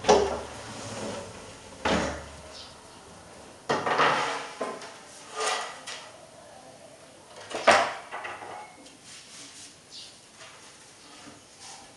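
Wooden shelf boards and metal shelf rails being handled on a tiled floor: a series of knocks and clatters, the sharpest at the start and about eight seconds in, with lighter taps and scrapes between and after.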